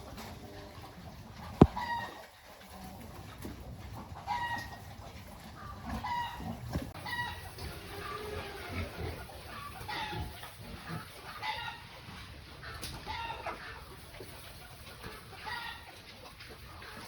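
Chickens clucking, short calls repeating every second or two, with one sharp knock about a second and a half in.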